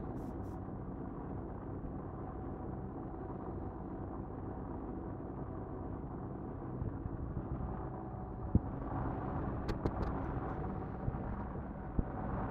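Steady running hum and rumble of a paint spray booth's ventilation, with a few sharp clicks in the last few seconds.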